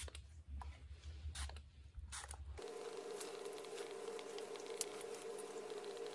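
A handheld pump spray bottle of pillow mist gives a few short sprays, about a second or so apart. Then a steady hum with faint ticks and scratches of a stylus writing on a tablet screen.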